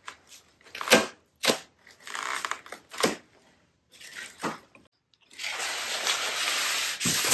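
Plastic wrapping and foam packing rustling and crinkling as a porch bench is unpacked from its box, with several short, sharp clicks. From about five seconds in comes a longer, steady scraping rustle as the bench is lifted from its foam and plastic.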